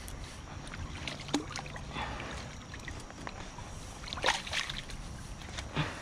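Shallow creek water running steadily around a wading angler's legs and landing net, with three short splashes and knocks as a hand works in the net among weeds and a trout; the loudest is about four seconds in.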